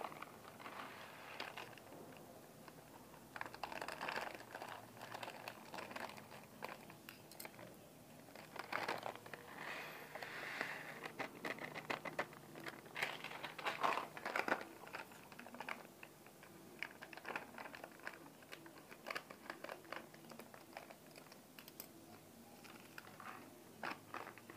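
Plastic snack packets crinkling and dry fried snacks (gram-flour jhuri bhaja strands and fried moong dal) pattering into glass bowls as they are poured, in irregular, fairly faint bouts of rustling and small clicks.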